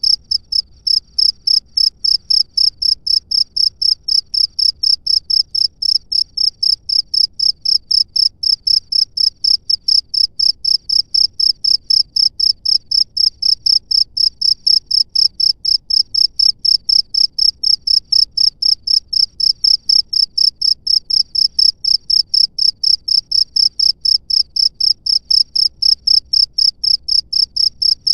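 A cricket chirping close up, steady and regular at about three to four chirps a second, each chirp a short high-pitched pulse.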